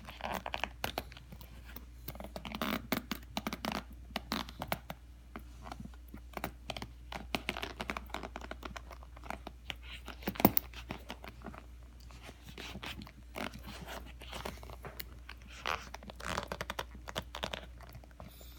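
Needle-nose pliers gripping and working a metal lace hook on a leather boot: irregular clicks, taps and scrapes of steel on metal and leather, with one louder click about ten seconds in.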